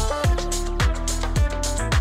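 Background music with a steady electronic drum beat: kick drum, hi-hat and sustained notes.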